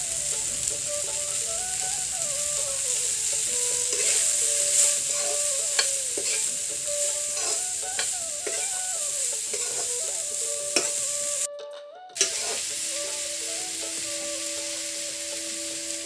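Shredded vegetables frying in hot oil in a kadai, a steady sizzle, with a metal spatula scraping and clicking against the pan as they are stirred.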